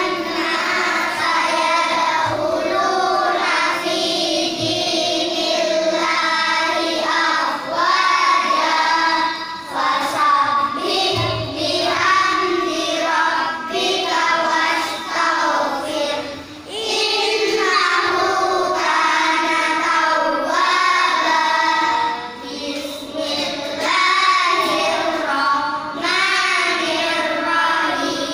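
Children's voices chanting a Qur'an recitation aloud together in a sing-song melody. Near the end a single boy recites into a microphone.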